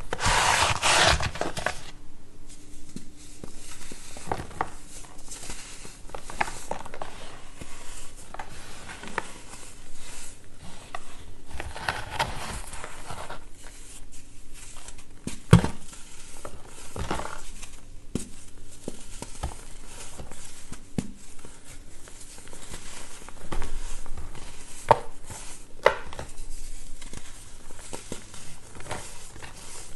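Reformed blocks of blue-dyed baking soda crushed and crumbled by hand: soft crunching and gritty crumbling, with a loud crunch right at the start and a few sharp snaps as pieces break, the sharpest about halfway through.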